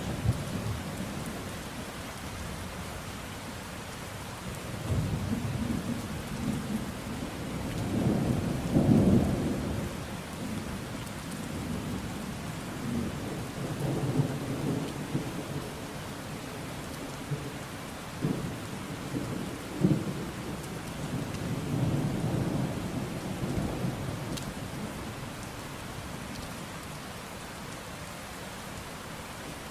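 Steady heavy rain with rolling thunder. Several low rumbles swell and fade, the loudest about eight to ten seconds in, and two short sharp cracks come a little past halfway.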